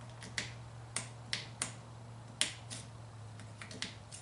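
Sharp plastic clicks, about ten at irregular intervals, as an aftermarket fuel sensor is pushed onto its fuel-line fitting and pulled off again. The sensor locks in but does not seal, so it leaks. A low steady hum runs underneath.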